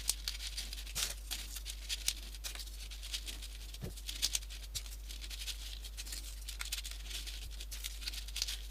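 Folded paper 3D origami pieces rustling and crinkling as they are handled and pushed into place, with irregular small crisp clicks of paper against paper.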